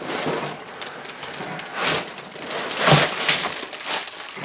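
Plastic bags full of LEGO bricks being lifted out of the box and set down on a table: crinkling plastic with the bricks clattering inside, louder about two and three seconds in.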